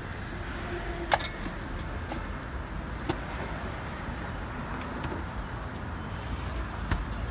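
Steady low hum of a busy street market, with a few sharp clicks and taps: the loudest about a second in, others near two, three and seven seconds in.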